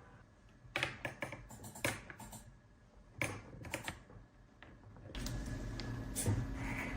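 A scatter of light, sharp clicks and taps, several in the first few seconds, then a steady low hum from about five seconds in.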